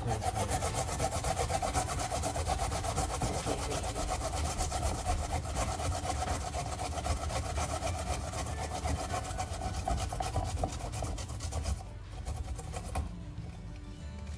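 Fast, continuous rasping scrape from hand food preparation in a kitchen. It stops abruptly about twelve seconds in, leaving something fainter.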